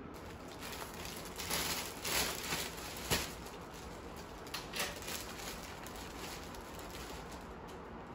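Clear plastic packaging around a bedding set crinkling as it is handled on the bed: a few short bursts of rustling in the first half, with one sharp click about three seconds in.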